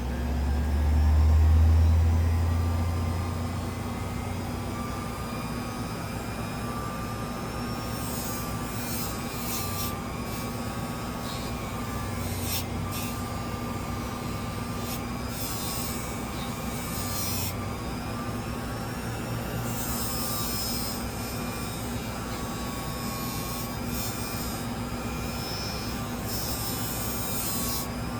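A steady hum with a low rumble in the first few seconds, then repeated hissy scrubbing bursts of a second or two each as a folding knife is cleaned.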